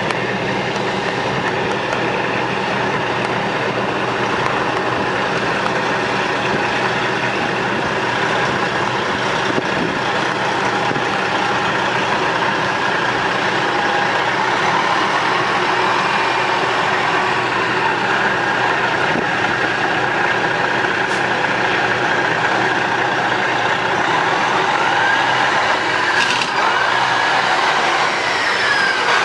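Detroit Diesel 12.7 L inline-six diesel in a Freightliner FLD tractor idling steadily.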